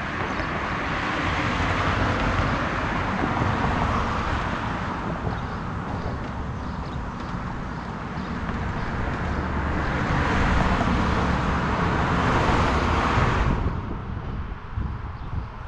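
Road traffic going by at an intersection: two swells of car and tyre noise, the second cutting off abruptly near the end, over a steady low rumble.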